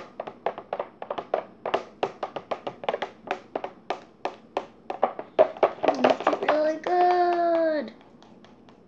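Singing with music: a quick run of short sung syllables, then one held note about seven seconds in.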